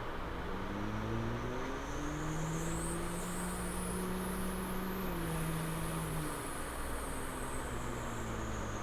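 A person imitating a car engine with their mouth: a buzzing hum that climbs in pitch over the first few seconds, holds, then drops about six seconds in, over a steady hiss.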